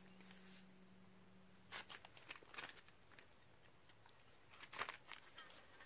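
Near silence: room tone with a few faint rustles and clicks, and a faint low hum that stops about two seconds in.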